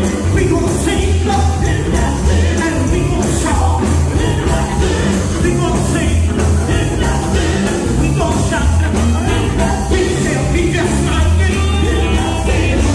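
Live gospel singing by a women's vocal group into handheld microphones over an electric-guitar band, played loud through a PA, with a steady pulsing low end.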